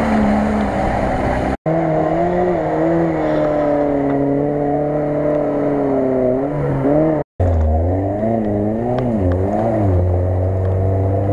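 Lada Niva engines revving hard as the 4x4s drive through mud and up a slope, the pitch rising and falling with the throttle and wavering quickly in the last few seconds. Two abrupt cuts, about one and a half and seven seconds in, break the sound into three separate runs.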